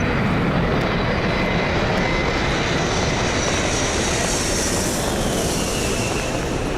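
An airplane's engines running over a steady airport background din, with a high hiss that swells about three seconds in and fades near the end, and a falling whine.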